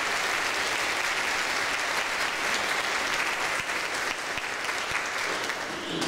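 Church congregation applauding steadily, easing off a little near the end.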